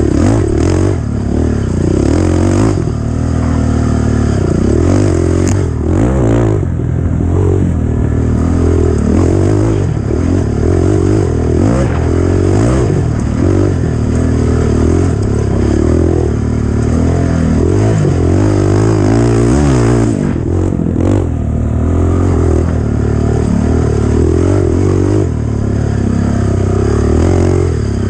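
Off-road dirt bike engine running loud under way, its revs rising and falling every second or two as the throttle is worked.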